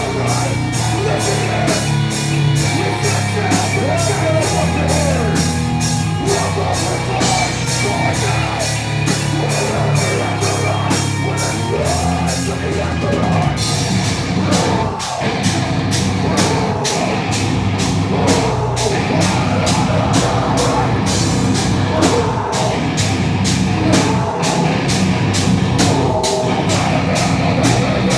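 Live heavy metal band playing loud, with the drum kit driving a fast, even beat under a dense wall of amplified instruments. The cymbals drop out briefly about halfway through.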